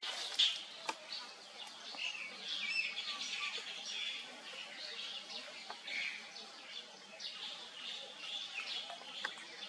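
Birds chirping and calling in the trees: many short, high calls overlapping one another, with a few faint clicks.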